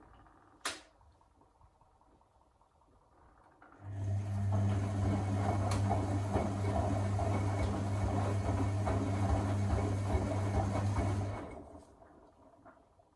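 Electra Electronic 1100 front-loading washing machine mid-wash: a single click near the start, then about four seconds in the motor starts and turns the drum for about seven seconds with a steady low hum and the wet towels tumbling and sloshing, before it stops again.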